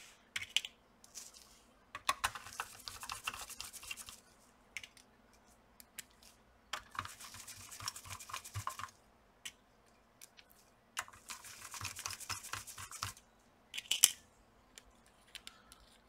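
Light clicking and scraping in three bursts of about two seconds each, with single sharp ticks between them: small metal screws handled in a plastic parts box and a precision screwdriver driving the screws that hold a graphics card's cooler.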